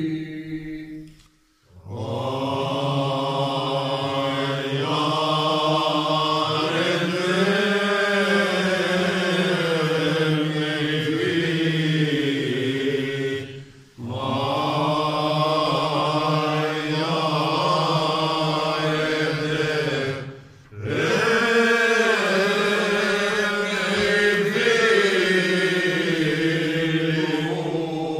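Unaccompanied male singing of a Cretan rizitiko song, in long, slow, drawn-out phrases, recorded on a mobile phone. The singing breaks off briefly for breath about a second and a half in, around fourteen seconds and around twenty seconds.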